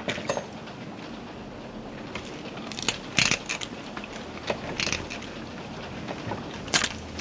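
Crab shell cracking and crunching as it is broken apart by hand, a few sharp cracks over a steady film-soundtrack hiss.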